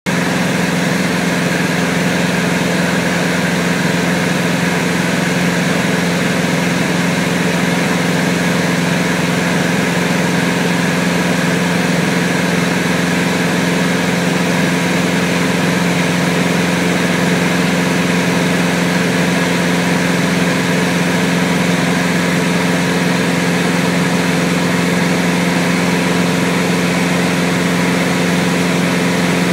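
Diamond DA20 light aircraft's piston engine and propeller droning steadily in cruise flight, a constant low hum over an even hiss of rushing air.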